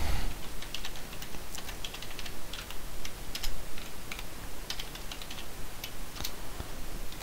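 Typing on a computer keyboard: a run of short, irregularly spaced key clicks as a login is entered.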